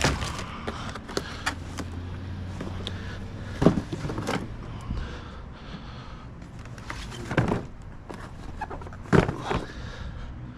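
Snack products and packaging being handled while restocking a vending machine: a handful of sharp knocks and clatters with lighter ticks between, over a steady low hum that fades about halfway through.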